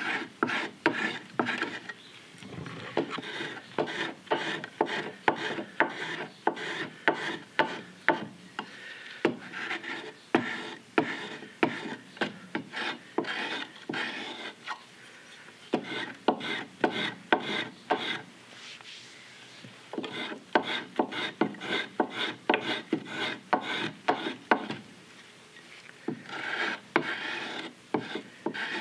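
Hand tool cutting into green sycamore as a belt cup is carved: short, sharp strokes at about two to three a second, in runs broken by brief pauses.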